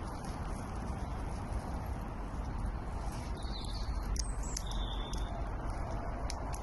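Wild birds calling a few times about halfway through, short high chirps that rise and fall, over a steady low outdoor rumble.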